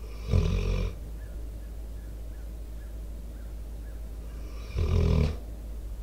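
A sleeping American Staffordshire Terrier/pit bull snoring close to the microphone: two short, loud snores about four and a half seconds apart.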